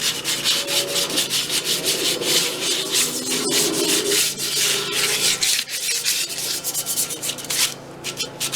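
Sandpaper rubbed by hand over a car wheel rim: quick back-and-forth scrubbing strokes, with a brief lull about five and a half seconds in.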